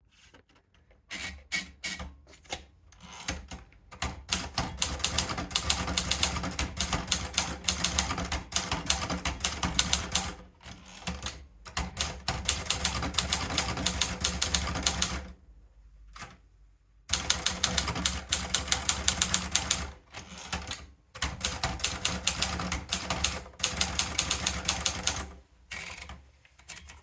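Gracia De Luxe typewriter being typed on: rapid runs of key strikes at several a second, broken by short pauses and one longer pause about halfway through, thinning to a few scattered clicks near the end.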